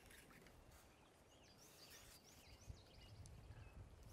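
Near silence: faint outdoor ambience with a few faint, high chirps.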